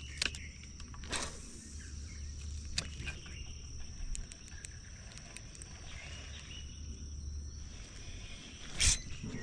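Outdoor ambience: a steady high-pitched drone with a low rumble underneath, broken by a few sharp clicks and knocks, the loudest near the end.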